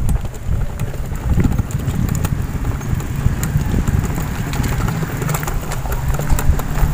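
Low rumbling handling noise from a hand-held phone being carried while walking, with scattered faint clicks of footsteps on paving.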